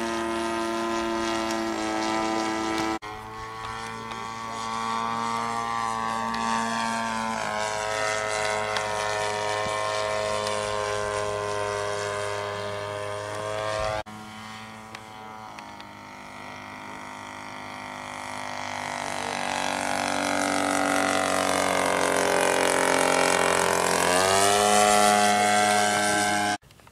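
RC model airplane flying, its motor and propeller making a steady drone that shifts in pitch as it manoeuvres, with abrupt changes about 3 and 14 seconds in. It grows louder over the last several seconds as the plane comes close, the pitch dipping and then rising as it passes, and it cuts off just before the end.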